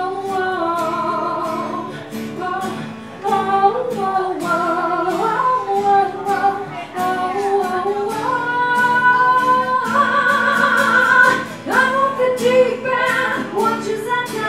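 A woman sings a melody over a strummed acoustic guitar, holding some long notes with vibrato, amplified through a PA.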